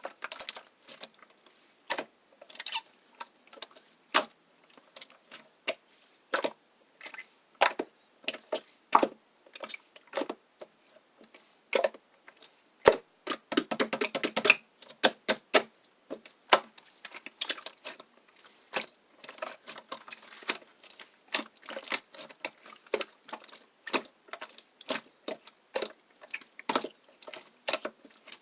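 Slime being pressed and stretched by hand, giving irregular clicks and pops, with a dense run of crackles about halfway through.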